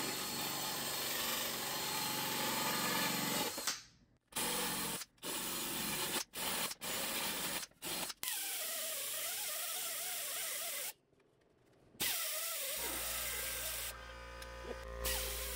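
Cordless drill running: one long run of about four seconds, then a series of short bursts with the trigger let go between them, its pitch wavering up and down in the last long run. Near the end a steady low hum comes in.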